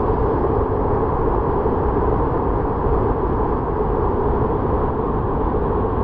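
Steady roar of rushing water from a waterfall and its stream, a constant noise heavy in the low end.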